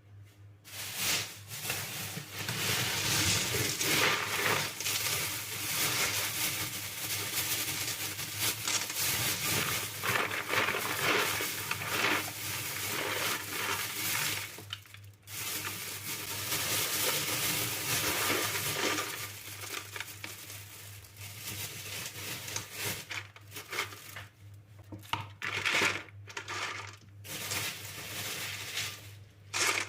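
Dry pulses pouring and rattling into a storage container, a long stream of hard little grains with a short break about halfway through and shorter pours near the end, over a steady low hum.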